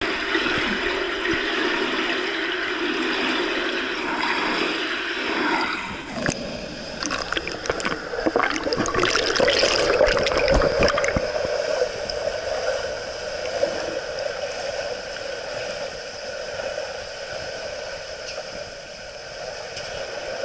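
Pool water heard through a submerged action camera's microphone: lapping and gurgling at first, then from about six seconds a run of sharp splashes and bubbling clicks as a swimmer passes, settling into a steady, muffled underwater hum.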